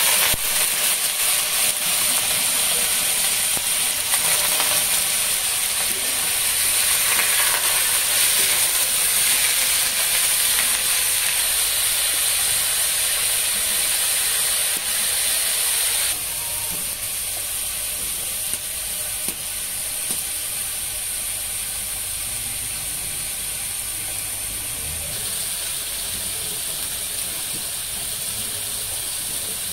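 Freshly washed chicken pieces frying in hot oil in a black wok over a wood fire: a loud, steady sizzle that starts suddenly as the meat goes in and eases a little about halfway through.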